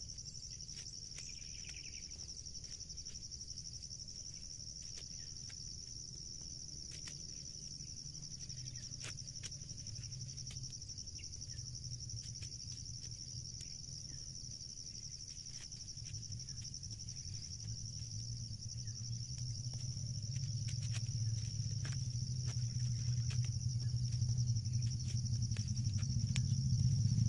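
Steady high buzzing of insects in the field, with scattered dry clicks and crackles of corn husks being stripped by hand. A low rumble grows steadily louder through the second half.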